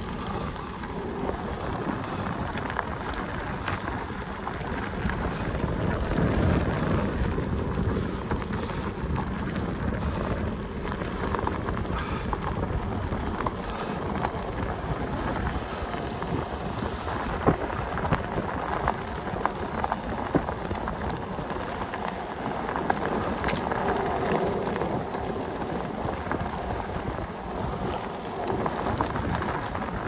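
Bicycle riding: tyres rolling over a rough surface with wind buffeting the microphone, and scattered clicks and rattles throughout.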